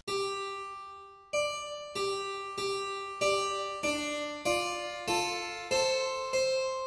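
Slow solo keyboard music: single notes struck one after another at an even pace, each with a sharp start that fades away, the melody moving up and down.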